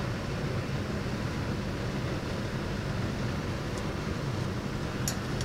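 Steady low background hum, with a few faint, light clicks near the end as the metal dental torque wrenches are picked up from the table.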